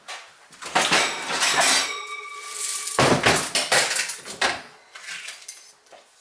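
Small metal tools clinking and rattling while being rummaged through for a lock shim, in two bursts with a brief ringing tone from struck metal between them.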